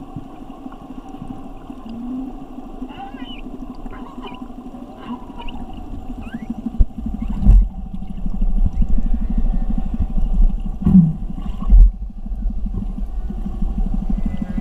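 Underwater sound around humpback whales: a steady low rumbling hum, with short high squeaks and whistles in the first half and three loud low thumps in the second half.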